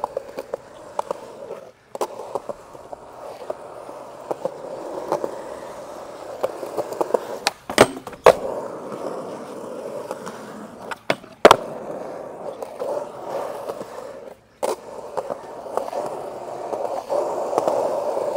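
Skateboard wheels rolling on smooth concrete, broken by sharp clacks of the board striking the ground: a pair a little before halfway and a louder pair a few seconds later.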